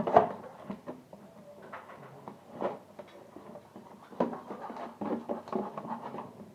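Kitchen handling noises from raw chicken pieces being worked in a bowl at the sink: irregular soft knocks, wet rustles and light clatter, with a sharper knock at the start and a busier stretch in the second half.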